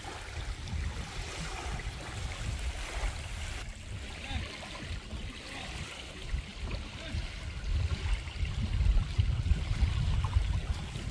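Wind buffeting the microphone in a steady rumble, over small waves lapping on a sandy lake shore.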